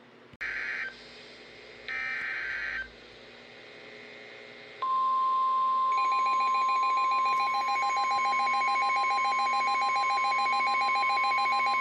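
NOAA Weather Radio emergency alert: two short bursts of screeching SAME digital header tones, then the loud steady 1050 Hz warning alarm tone, joined about a second later by a rapidly pulsing alarm. This is the signal that opens a broadcast warning, here a special marine warning.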